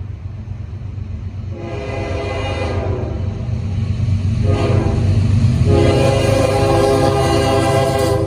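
Norfolk Southern diesel locomotive's air horn sounding a chord for a grade crossing: two blasts of about a second each, the second about three seconds after the first, then a long blast that is still sounding at the end. Underneath, the low rumble of the approaching locomotives grows steadily louder.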